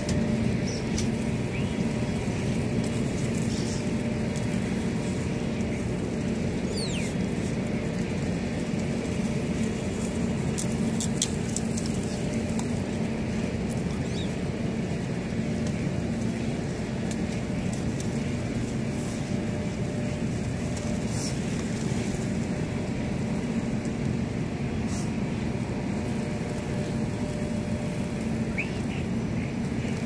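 A steady low hum and rumble at an even level, with a few faint, brief bird calls now and then.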